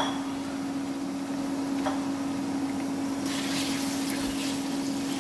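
Thin slices of beef sizzling in hot oil in a wok over high heat, with a steady low hum underneath. A little past halfway a wooden spatula starts stirring the beef and the sizzling hiss grows brighter.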